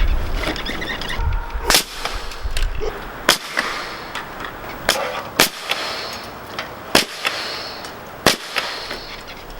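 About six sharp knocks at uneven intervals of half a second to a second and a half. A low rumble fades out in the first two seconds.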